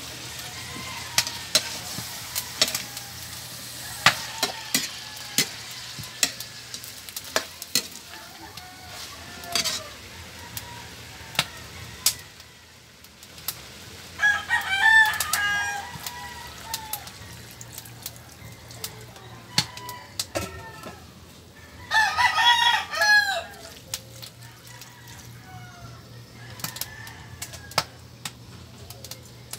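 Metal spatula clinking and scraping against a wok as pork fries with a faint sizzle. A rooster crows twice, near the middle and again about three-quarters of the way through.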